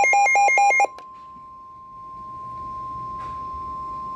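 NOAA Weather Radio warning alarm tone: a steady single-pitch tone at about 1 kHz, announcing a warning broadcast. For the first second rapid electronic beeping, about eight beeps a second, sounds over it, then stops, leaving the tone alone and quieter.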